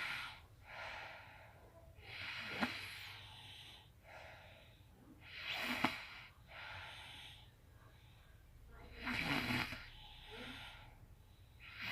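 A sleeping person snoring, faintly, with three snores about three seconds apart and a softer breath between them.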